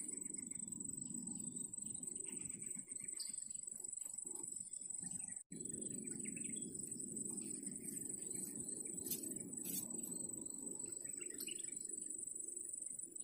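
Open-air ambience: a steady high insect drone with faint, scattered bird chirps over a low rumble, broken by a brief dropout about halfway through.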